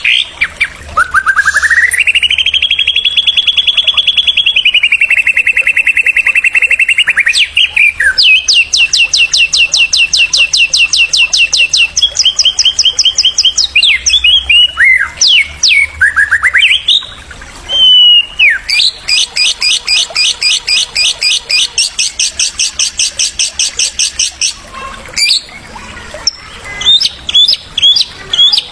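White-rumped shama (murai batu) song: long, fast trills of rapidly repeated notes, some level and some sweeping up or down in pitch, broken by short whistled phrases. It is the rapid-fire 'tembakan' singing used as a masteran to provoke a murai.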